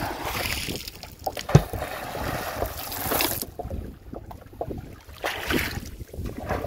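Water splashing around a small fishing boat as it is paddled with a wooden pole, with knocks on the boat and a sharp knock about a second and a half in. Wind buffets the microphone, and the hissing splash dies down about three and a half seconds in.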